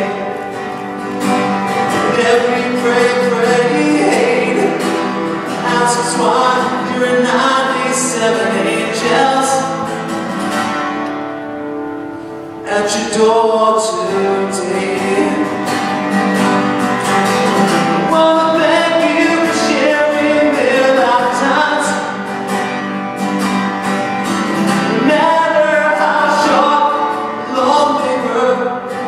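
A man singing to his own acoustic guitar accompaniment. The playing thins out for a moment about eleven seconds in, then comes back fuller.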